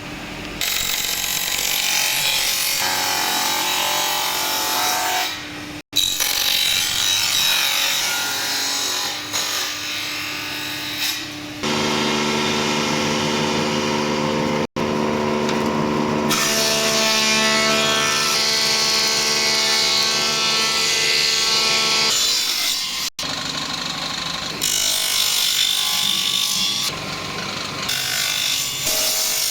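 Power tools working wood, cutting and sanding, in several short edited segments that cut off abruptly. In the middle stretch a tool's motor whines at a steady pitch under the cutting noise.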